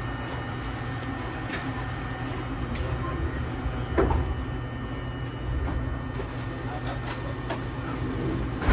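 Steady low hum of the standing Eizan Electric Railway "Hiei" train, with a knock about four seconds in and a louder knock near the end as its front passenger door slides shut.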